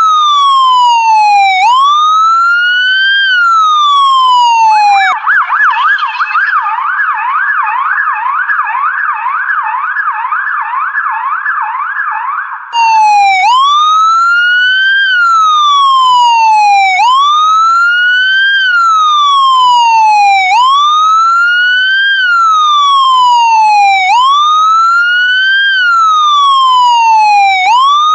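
Police car siren changing mode. It starts with a slow wail rising and falling every few seconds, switches about five seconds in to a rapid yelp of quick up-and-down sweeps, and returns to the slow wail after about thirteen seconds.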